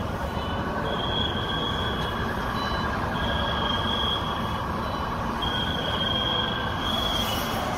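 Steady outdoor street din with a high-pitched squealing tone over it. The tone comes and goes every second or so and steps between two close pitches.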